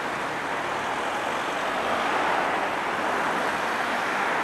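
Road traffic passing close by: cars and a van driving past, a steady rush of tyre and engine noise that grows a little louder.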